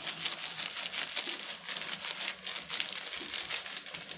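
Beef and sauce sizzling in hot oil in a wok, a dense steady crackle.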